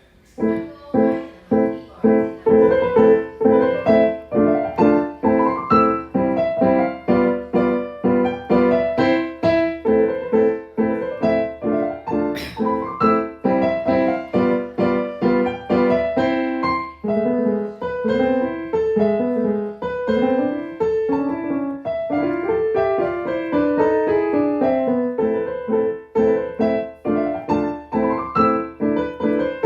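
Solo piano played as a steady stream of notes, with rising and falling runs in the later part. About twelve seconds in there is one brief sharp noise, which is the player's cough, sounding like a hiccup.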